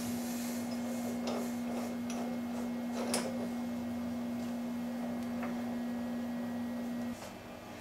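Metal lathe humming steadily, with a few light metallic clicks as a drill bit is fitted into the tailstock drill chuck. The hum cuts off about seven seconds in.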